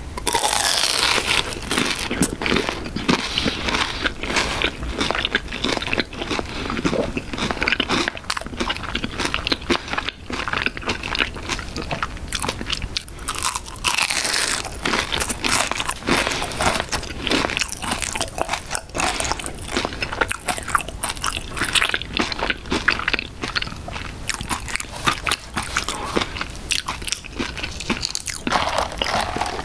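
Close-miked biting and chewing of a McDonald's raspberry cream cheese pie with a very crispy fried crust: dense crackling crunches throughout, loudest near the start and again about halfway through.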